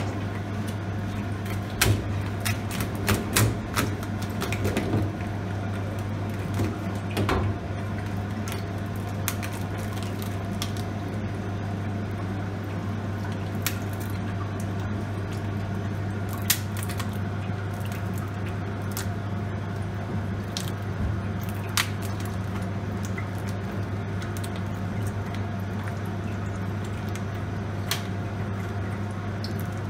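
Knife cutting through a lobster's shell on a plastic cutting board, with scattered cracks and taps, most of them in the first several seconds and a few single ones later. A steady low hum runs underneath.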